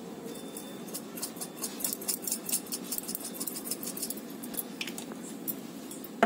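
Dried mixed herbs crumbled between fingers and sprinkled over a plate of food: a run of quick, faint crackly ticks for the first three and a half seconds or so, a few more near five seconds, over a steady low hum.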